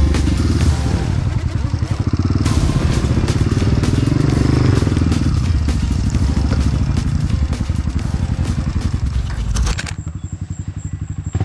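Honda CRF250F dirt bike's single-cylinder four-stroke engine running under load on the trail, its pitch rising and falling with the throttle. Near the end the sound drops suddenly to a quieter, duller engine note.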